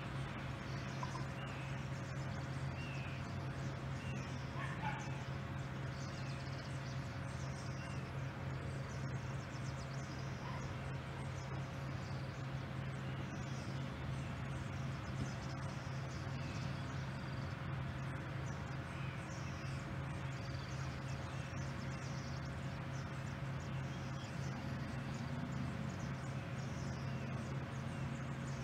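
Boeing 747 (VC-25A Air Force One) jet engines running steadily at taxi power, a constant rumble with a steady mid-pitched tone. Faint high chirps come now and then.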